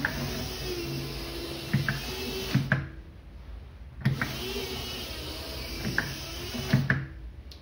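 N-gauge model train running on its track, its small DC motor humming with a hiss of wheels on rail. It runs in two stretches of about two and a half seconds, each switched on and off with a sharp click of the relay circuit.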